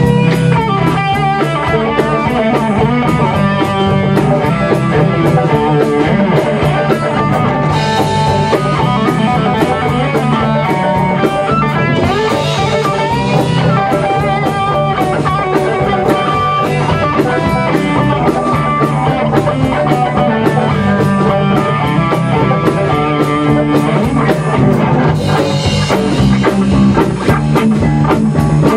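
Rock band playing live without vocals: electric guitars, bass guitar and drum kit keeping a steady beat.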